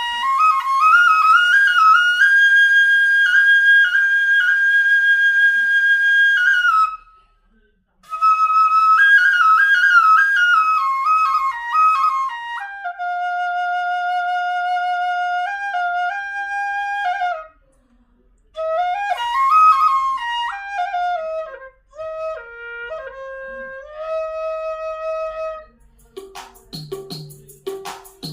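Solo flute melody of held notes and quick stepping runs with slides between pitches, pausing a few times. Near the end other instruments join with low notes and struck or plucked attacks.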